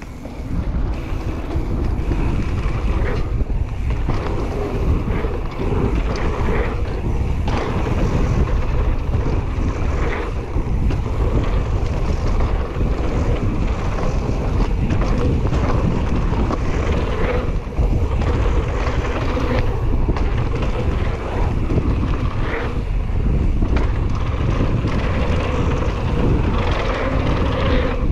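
Wind buffeting the microphone of a mountain bike rider's camera, over the rolling of knobby tyres on a packed-dirt trail, with frequent short knocks and rattles from the bike over bumps.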